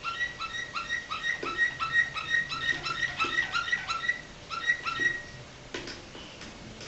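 Domestic canary singing a flute-like 'flawta' phrase: a run of clear, evenly repeated whistled notes, about three or four a second, that stops about five seconds in. A few sharp clicks follow.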